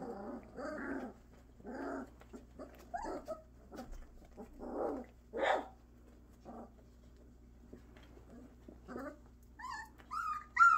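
Three-week-old F2b Bordoodle puppies making short, scattered grunts and small growls, then a few high, squeaky whines near the end.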